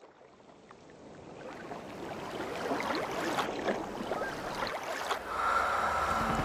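Shallow sea water lapping and splashing at a sandy beach, fading in and growing steadily louder. A steady high tone joins about five seconds in.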